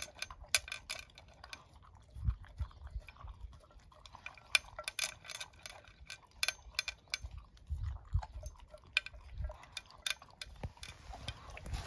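A dog eating from a plastic slow-feeder bowl: an irregular run of crunches and sharp clicks of chewing and of its teeth and food knocking against the bowl, with occasional dull knocks.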